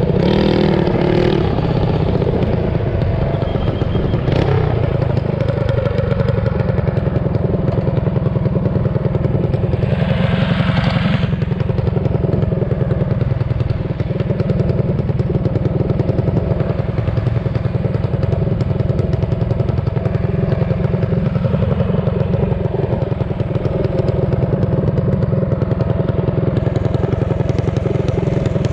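Mini bike engine running steadily while the bike is ridden, a dense rapid firing patter with little change in pitch.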